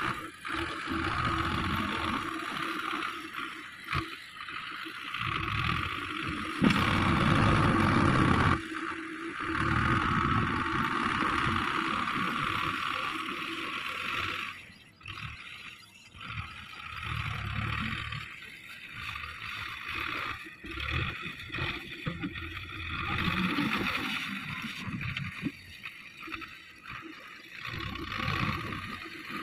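Belarus 510 tractor's diesel engine running under load as its front loader blade pushes and levels sand, its level rising and falling irregularly.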